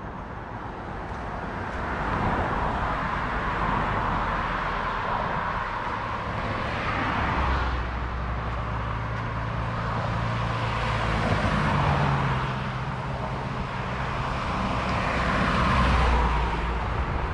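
Highway traffic passing along a two-lane road, vehicles swelling up and fading one after another. The loudest is a truck passing close near the end, with a heavy low rumble.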